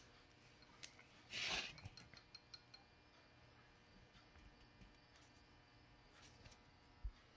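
Quiet handling of a Honda GL1200 Goldwing clutch pack: faint metallic clicks and ticks as the basket and its stacked plates are turned over in the hand. A brief louder rustle comes about a second and a half in, and a soft low thump near the end.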